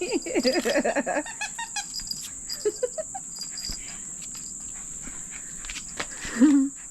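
Jack Russell puppy making short, wavering whines and yips, a rapid string in the first second, a few more around the middle and one near the end, with crickets chirping steadily behind.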